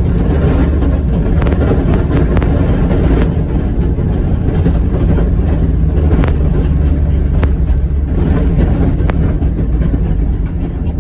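John Deere Gator XUV835M utility vehicle's engine running steadily while it drives and pushes a snow plow, with a few light ticks.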